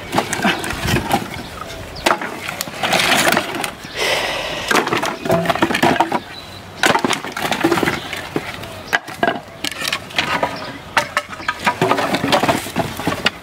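Split firewood and old planks being pulled off a woodpile by hand and tossed aside. The wooden pieces clatter and knock together in quick, irregular knocks.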